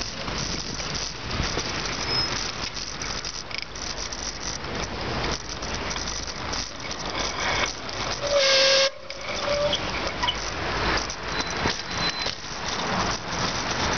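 Wind rushing over the microphone and road noise while riding a bicycle downhill, a steady loud hiss. About eight seconds in, a short shrill tone cuts through for under a second, then trails off faintly.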